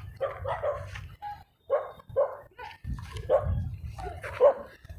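A dog barking repeatedly, in short separate barks.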